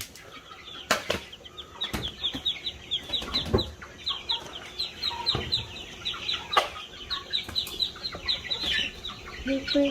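A brood of chicks peeping continuously: many short, high, falling peeps overlapping several times a second, with a few sharp knocks among them.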